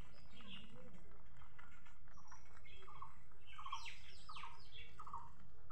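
Small birds chirping in the background: a run of short, quickly repeated chirps and quick falling notes in the second half, over steady low background noise.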